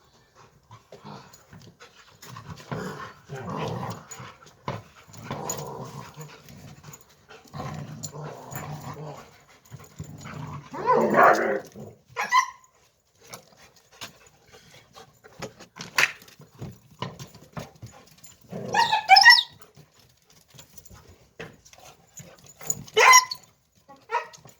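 Wolfdogs scuffling. Low rough growling in the first half, then several short, loud yelping cries. The owner takes it for one wolfdog asserting dominance over the other without hurting it.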